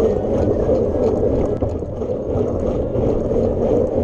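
Steady rushing noise of riding along a road, with wind on the microphone.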